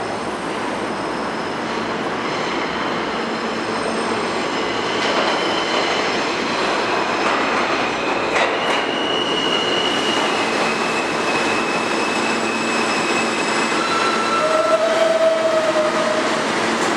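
Kawasaki R160B New York City subway trains running through an underground station: a dense rumble of wheels and motors, with steady high-pitched wheel and brake squeals. A louder squeal near the end comes as the arriving train brakes to a stop.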